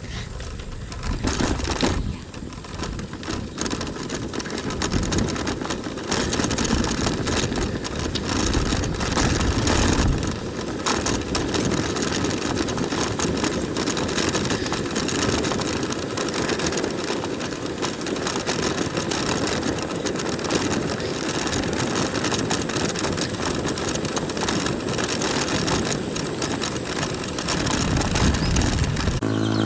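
Wind buffeting the microphone and a bicycle rattling over the road while riding, with a steady rumble and many small metallic clicks and knocks.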